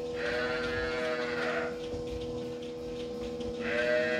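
Dairy cattle mooing: two drawn-out moos, each about a second and a half, one just after the start and one near the end, over a steady hum.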